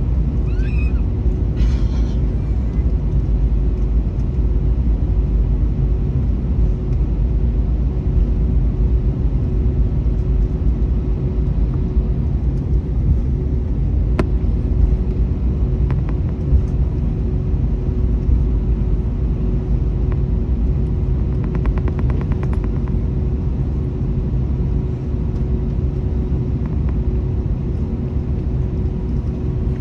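Cabin noise of a jetBlue Airbus A321neo taxiing: a steady low rumble from its Pratt & Whitney geared-turbofan engines at taxi thrust and the rolling airframe, with a constant hum over it. A few faint clicks come midway.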